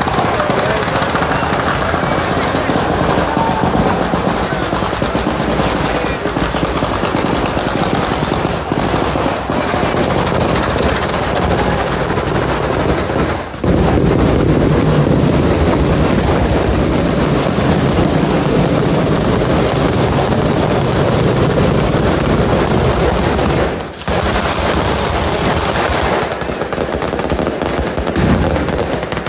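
A pyrotechnic batteria of firecrackers going off in a rapid, unbroken run of loud bangs, like machine-gun fire. The run breaks off briefly twice, about halfway through and again near the end.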